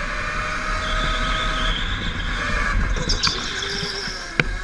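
Go-kart driving fast, heard from on board: a steady motor drone with several tones that slowly shift in pitch over a low rumble. Two sharp knocks in the second half, the later one the loudest moment.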